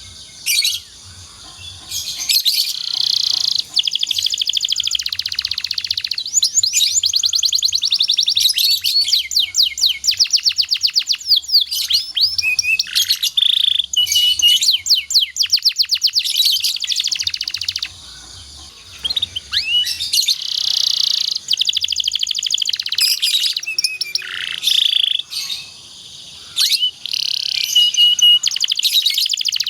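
Domestic canary singing a long song of rapid trills, quick repeated notes and chirps, with a few short pauses between phrases.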